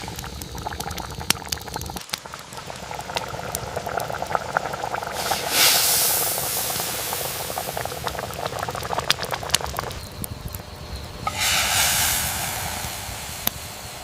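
Liquid bubbling and hissing in a pot over a campfire, with small crackling pops throughout and two louder swells of hiss about five and eleven seconds in.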